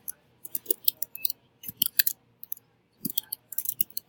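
Computer keyboard keys clicking as someone types, in quick irregular runs of keystrokes with short pauses between them.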